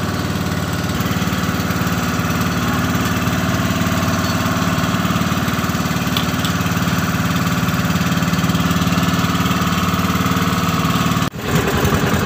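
Outrigger boat's engine running steadily at an even pitch. About eleven seconds in the sound breaks off abruptly and a rougher, more uneven engine sound follows.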